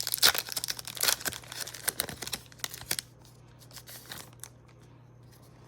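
Foil wrapper of a Pokémon trading card booster pack being torn open and crinkled, with dense sharp crackling over the first three seconds, then a few scattered crinkles.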